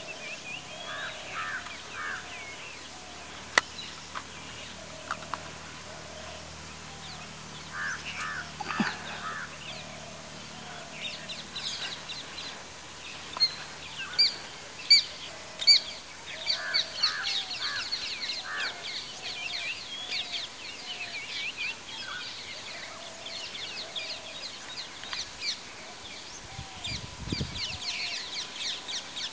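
Several wild birds calling: a short call repeated about once a second, with a fast, high-pitched chatter building through the second half. A few sharp clicks stand out, one early and a cluster around the middle.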